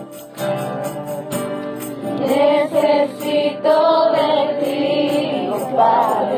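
Christian song with several voices singing together over instrumental accompaniment, getting louder about two seconds in.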